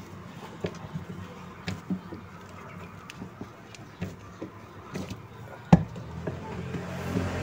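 Scattered light clicks and taps of hands handling a washing machine's plastic drive pulley and gearbox as the new gearbox is fitted, with one sharper knock a little before the end.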